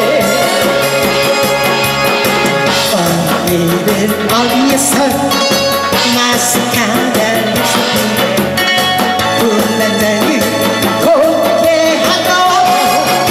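A woman singing a Korean trot song into a handheld microphone, amplified over a loud, rhythmic backing track.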